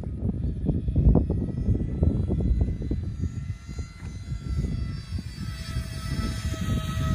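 2200 kV brushless electric motor of an RC Boeing airliner model whining steadily in flight, getting louder over the last couple of seconds as the plane passes close overhead. A loud, irregular low rumble of wind on the microphone runs under it.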